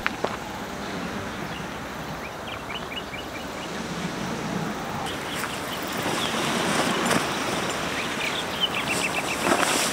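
Steady outdoor rushing noise with a few short runs of bird chirps over it.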